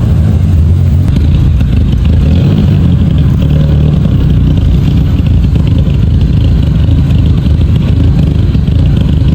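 VW Golf GTI Mk5's 2.0 turbocharged four-cylinder engine idling, loud and close, with an uneven beat; the car is logging misfires on cylinders 1, 2 and 3.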